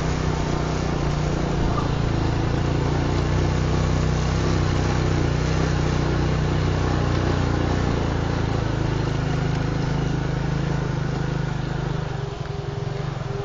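An engine running steadily at a constant speed, dropping away about twelve seconds in.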